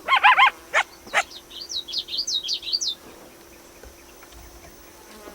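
Coyote yipping: three quick yelps, two more, then a run of short high squealing yips that stop about three seconds in. A faint steady tone runs underneath.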